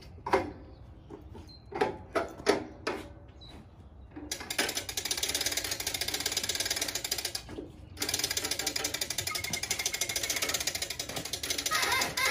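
Hand-crank winch of a material lift being turned to raise a beam, its ratchet clicking rapidly and evenly; it starts about four seconds in after a few sharp knocks, pauses briefly and starts again.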